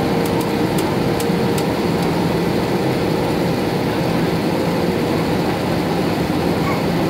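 Steady cabin noise inside an Airbus A320-214 descending towards landing: the CFM56 engines and the airflow past the fuselage make an even roar with a faint steady hum running through it. A few faint ticks sound in the first two seconds.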